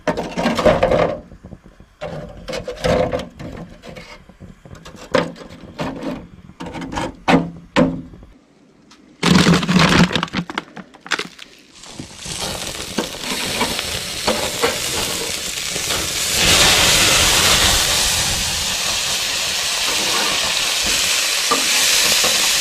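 Metal clanks and knocks as a small grill's grate and parts are handled, with a heavier thump about nine seconds in. Then burger patties sizzle steadily over the grill's flames, the sizzle growing louder about two-thirds of the way through.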